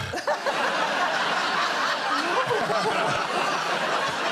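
Studio audience laughing loudly, many people at once, breaking out suddenly right after a punchline and holding steady, mixed with the panellists' own laughter.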